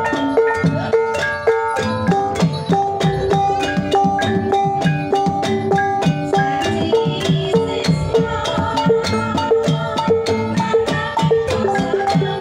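Banyumasan gamelan playing a tayub piece: bronze kettle gongs and metallophones ring out in steady interlocking strikes over regular kendang drum strokes.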